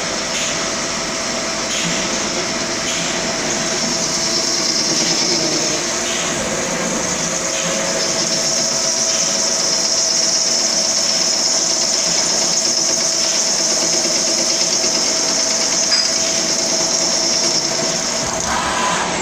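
CNC lathe running a part program after cycle start: steady machine noise with a strong high hiss and a steady hum, a single click about sixteen seconds in.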